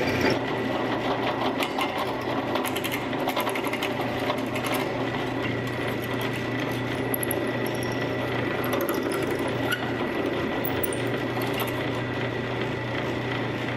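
Benchtop drill press running steadily, its twist bit drilling a metal scope-riser plate, with scattered clicks and scraping as the bit bites. The second hole is being drilled right beside the first to stretch the hole into an oval slot.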